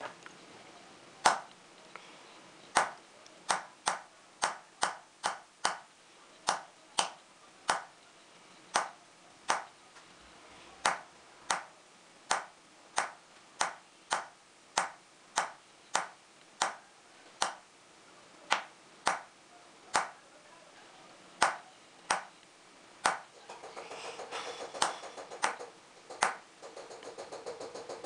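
Small hammer tapping a steel engraving chisel into a silver plate set in pitch: sharp metallic taps about one or two a second, in an uneven rhythm, as the line of the design is cut.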